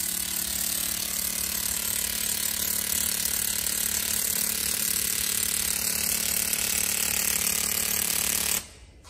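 100 W backpack laser cleaner firing on a rusty metal plate, stripping the rust: a loud, steady, rapid crackling buzz over a low hum, which cuts off suddenly near the end as the beam is switched off.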